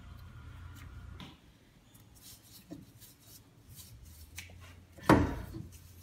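Faint rubbing and light ticks of gloved hands working anti-seize onto a steering knuckle's hub mounting face, with one loud knock about five seconds in.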